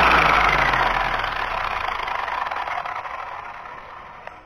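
Spektrum 4685 1250Kv brushless motor and drivetrain of an Arrma Limitless V2 RC car spinning down after a burst of throttle: a whir that fades steadily away, with a couple of light clicks near the end.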